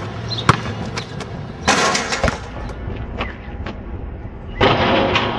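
A basketball knocking sharply on an asphalt court several times, then a loud clattering rattle near the end as a player dunks on the outdoor hoop's rim and backboard.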